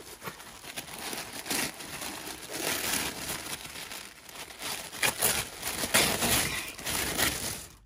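Tissue paper rustling and crinkling as hands unfold it and fold it back inside a cardboard box, in uneven bursts that are loudest about five to six seconds in.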